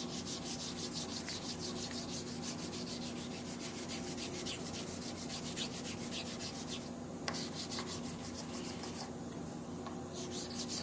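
Clear coat on a 1958 MGA's painted body being wet sanded by hand with 600-grit sandpaper: quick, even back-and-forth rubbing strokes, with a short break about seven seconds in and another near the end.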